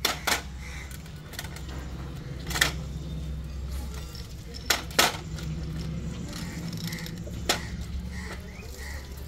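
Sharp metallic clinks and knocks of hand tools and parts being handled during truck wheel work, about six in all, over a steady low hum.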